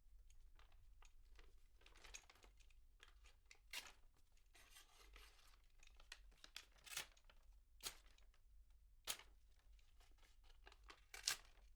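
Box cutter blade slicing through paper, recorded at medium distance: a quiet series of short scratchy cuts and sharp clicks, with one longer drawn-out cut about five seconds in.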